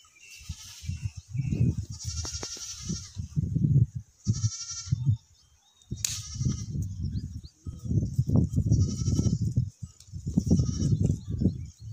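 Goats bleating, about four quavering calls, over an irregular low rumble that is louder than the calls.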